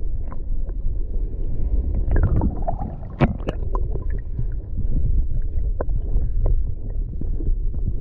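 Muffled underwater rumble and slosh of sea water around an action camera held under the surface, with a few sharp clicks, the strongest about three seconds in.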